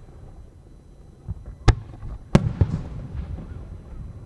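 Aerial firework shells booming: two sharp reports less than a second apart, just under two seconds in, with smaller thuds around them and a low rumble of echoes rolling between.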